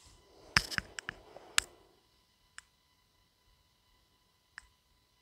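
A utensil clicking and knocking against an iron skillet while stirring sliced eggplant: a quick cluster of sharp clicks with a soft scraping rustle in the first two seconds, then two single ticks about two seconds apart.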